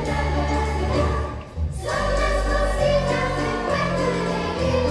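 Children's choir singing with band accompaniment, steady bass notes under the voices. The sound dips briefly about a second and a half in, then carries on.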